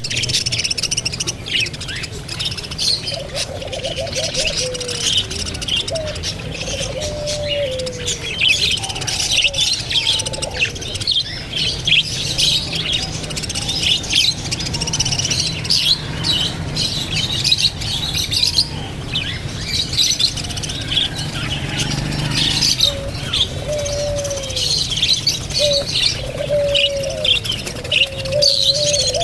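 Many birds chirping at once without a break, with short, low, falling coo-like calls repeating a few seconds in and again near the end.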